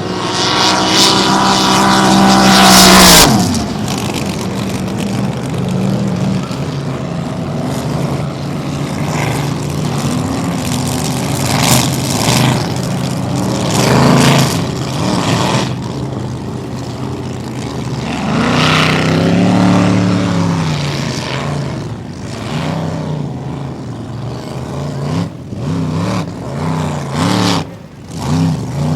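Supercharged alcohol-burning flat-bottom race boats (K boats) running at speed. A loud pass with falling pitch cuts off sharply about three seconds in. The engines keep running, their pitch rising and falling, with another loud pass about two-thirds of the way through.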